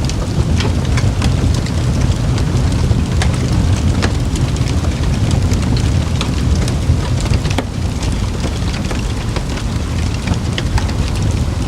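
Campfire burning, with frequent small irregular crackles and pops over a steady low rumble.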